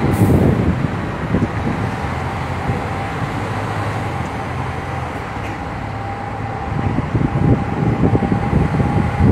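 Double-decker tour bus driving through city traffic, heard from its open upper deck: a steady engine and road rumble with a thin whine. Wind buffets the microphone at the start and again near the end.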